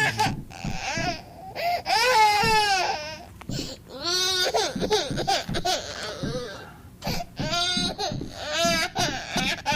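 A high-pitched voice making a series of drawn-out, wavering nonverbal cries with short gaps between them.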